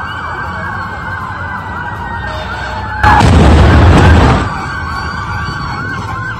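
A fire engine's siren yelping, about three wails a second. About three seconds in, a loud blast with a deep rumble cuts across it for about a second and a half: the burning taxi's natural-gas (CNG) tank exploding.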